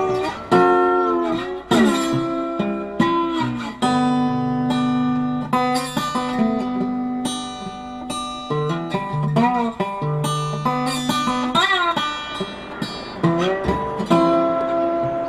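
Background music: an acoustic guitar playing a melody of plucked notes and strums, with a few notes bent in pitch.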